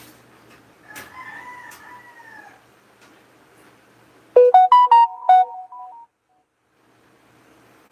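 A rooster crows once, fairly faint, its pitch falling at the end. About four seconds in, a much louder electronic jingle follows: about seven quick beeping notes stepping up and down in pitch, like a phone alert tone. It stops suddenly.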